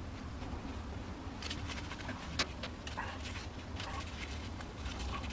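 Paracord being pulled and worked through knots by hand and gloved hand: short scuffs, rasps and clicks of cord and glove handling from about a second and a half in, over a steady low hum.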